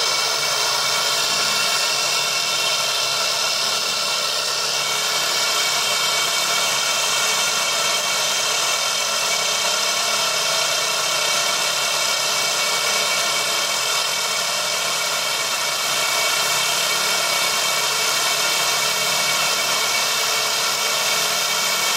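Laser engraving machine running as it engraves metal: a steady, unchanging hiss and whine with several held tones.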